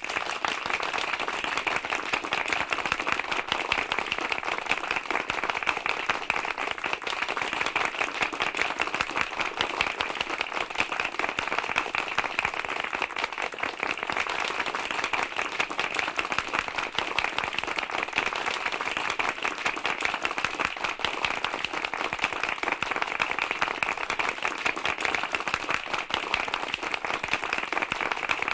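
A large crowd applauding loudly and steadily, a dense patter of many hands clapping with no rise or fade.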